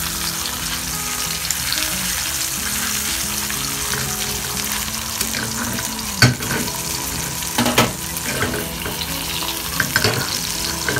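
Sun-dried beef frying in butter in a non-stick pan, a steady sizzle, with two sharp knocks about six and eight seconds in.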